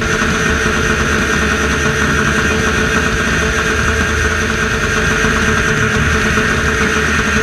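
Demolition derby car engines running at a steady speed, a constant drone with a held whine.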